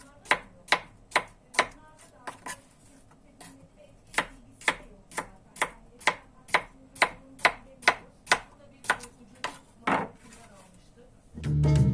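A knife chopping on a cutting board in steady strokes, about two a second, with a short pause about two seconds in. Background music starts near the end.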